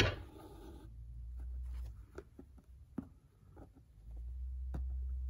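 Quiet handling sounds of hand embroidery on a cap in a wooden hoop: a sharp click at the start, a brief rustle, then a few light ticks over a low rumble.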